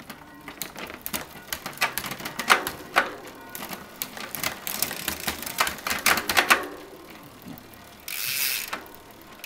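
Irregular mechanical clicking and ratcheting from a bicycle's parts being worked by hand during a service, followed near the end by a short hiss.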